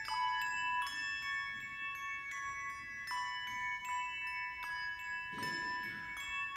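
A handbell duet playing a slow melody: a new bell is rung about every 0.8 s and each note rings on, so the bell tones overlap.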